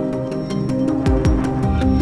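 Background music: a synthesized instrumental track with sustained notes over a steady beat of light percussion and deep kick drums.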